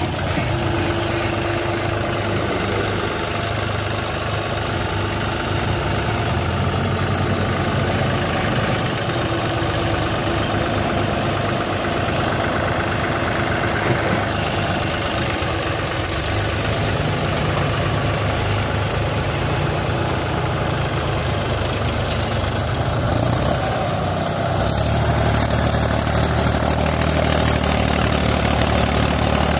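Farm tractor's diesel engine running steadily close by. About 25 seconds in it grows louder, with a stronger low hum, as the engine takes the load of raising a hydraulic tipping trolley.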